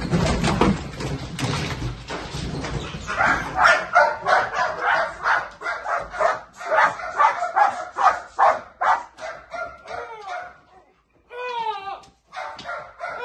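Protection-trained shepherd dog barking in a rapid, repeated volley, about three barks a second, at a person it has found and is holding in place, the trained hold-and-bark threat. The barking follows a few seconds of scuffling movement noise and breaks off briefly near the end before starting again.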